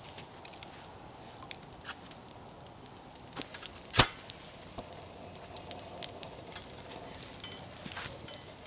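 Wood campfire crackling, with scattered small snaps and one loud sharp pop about four seconds in.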